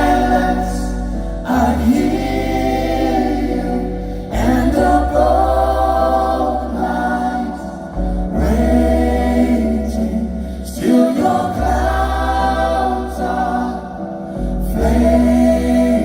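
Live band music with several voices singing together in harmony over long held bass notes, in phrases about three seconds apart.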